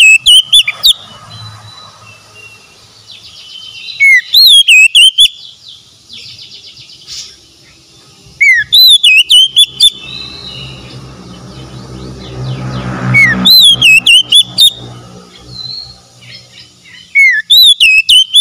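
Male oriental magpie-robin singing: loud phrases of rising and falling whistled notes, each about a second long, repeated about every four to five seconds, with softer notes between the phrases.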